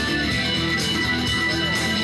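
Live instrumental music: an amplified electric guitar and an electronic keyboard playing together, with sustained chords and notes.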